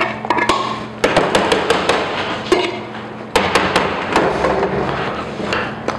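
Metal spoon clanking and scraping against a stainless steel pot as cooked rice is knocked out onto a cutting board. It is an irregular series of sharp taps and knocks, with louder clanks about a second in and again past the midpoint.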